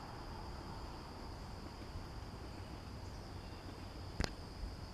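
Faint steady background: a thin high-pitched tone and a low hum, with one sharp click about four seconds in.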